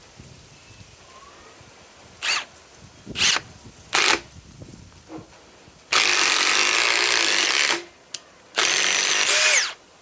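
Milwaukee M18 Fuel Gen 4 impact driver driving a 6-inch lag-type screw into wood: three short trigger blips, then two long runs of hammering, the first about two seconds and the second about one second.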